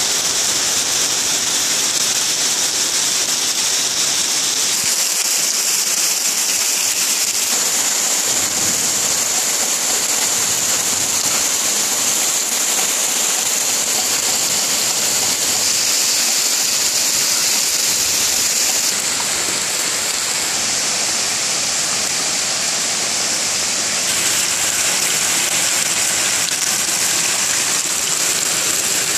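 Heavy rain pouring down steadily, a dense even hiss of drops on leaves and splashing on wet, puddled ground.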